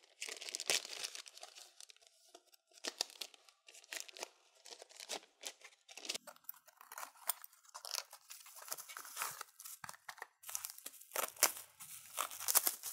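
Plastic mailing bag and taped bubble-wrap packaging being torn open and crinkled by hand: a steady run of irregular rips and crackles.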